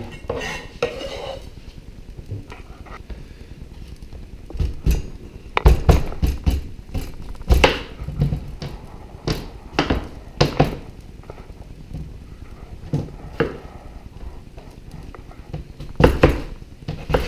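Kitchen work: irregular knocks and clatter of dishes, utensils and a cutting board being handled. The loudest knocks come in the middle and near the end.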